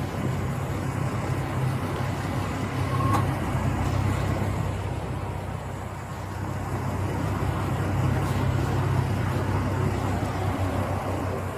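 Motor vehicle engine running steadily with a low hum, under road traffic noise that swells and fades.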